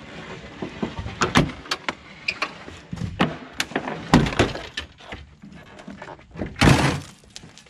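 Damaged car hood being worked free of its hinges, with a run of sharp metallic clanks and knocks, then thrown down onto gravel with a loud crash near the end.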